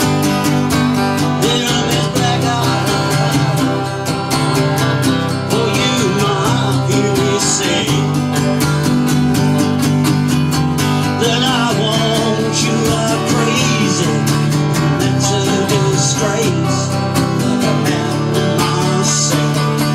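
Country song played on a strummed acoustic guitar, with a wavering melody line over the steady strumming.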